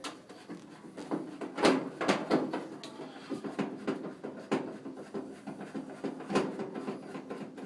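Irregular clicks, taps and knocks of a hand screwdriver backing screws out of a dryer's sheet-metal cabinet, with the panel knocking now and then. The loudest knocks come about two seconds in.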